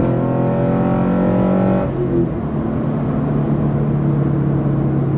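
Subaru BRZ's naturally aspirated flat-four on a full catless exhaust, heard from inside the cabin while the car is driven. The engine holds a steady note under throttle, drops off suddenly about two seconds in, then settles into a lower, steady drone.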